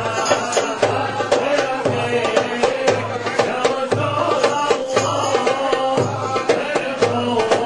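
Hand-held frame drums beaten in a steady rhythm under a group of men's voices chanting, the music of a Sufi hadrah. A deep beat falls a little faster than once a second, with quicker struck strokes between.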